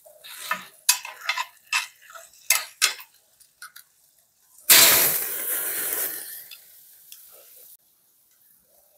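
Cooking utensils clicking and knocking, then about halfway through a sudden loud sizzle that fades over about three seconds and cuts off abruptly.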